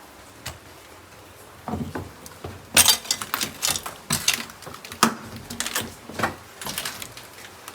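A run of irregular sharp knocks and clatters, starting about two seconds in, some of them loud.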